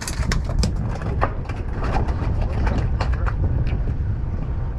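Boat engine idling with a low, steady rumble, with many small clicks and knocks from fishing gear being handled on deck.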